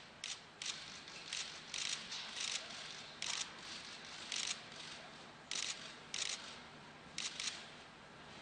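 Camera shutters clicking in short, irregular bursts, sometimes two in quick succession, about a dozen over several seconds, over faint room noise.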